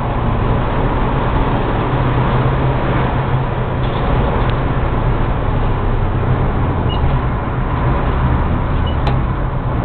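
Car driving at a steady road speed, heard from inside the cabin: a steady engine drone under road and wind noise.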